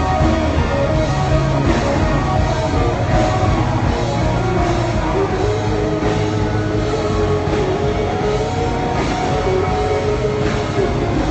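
Live worship band playing with electric guitar, bass and drum kit, with a steady beat.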